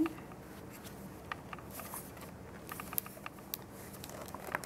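Faint, scattered clicks and light rustles of fingers handling a plastic-wrapped metal tea tin.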